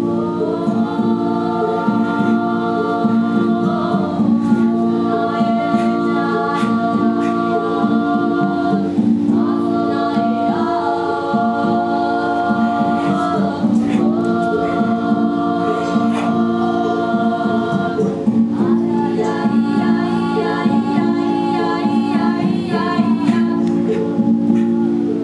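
Several voices singing together in long held phrases over a steady low instrumental drone, with a new phrase starting about every four to five seconds.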